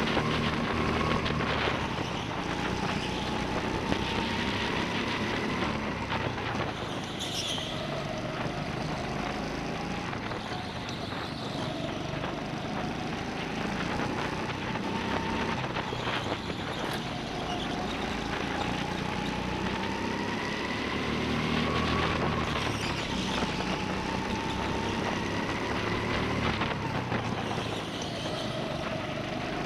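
Go-kart engines running hard, heard from on board a kart: the engine note climbs slowly, then drops off sharply, over and over, about every five or six seconds. There is a brief high squeal about seven seconds in.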